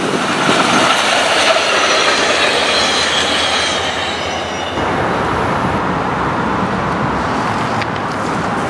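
SunRail commuter train passing close by: steady rolling noise of wheels on rail, with a faint high squeal in the first half and a heavier low rumble from about five seconds in.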